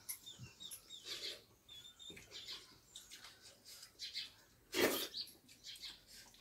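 Mouth sounds of people eating with their hands: short, irregular chewing and lip-smacking noises, with fingers working rice and noodles on steel plates. One louder burst about five seconds in.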